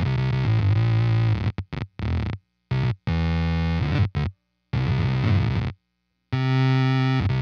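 Electric guitar played through an EarthQuaker Devices Bit Commander monophonic analog octave synth pedal: buzzy, synth-like notes in short phrases that cut off abruptly, with brief silent gaps between them.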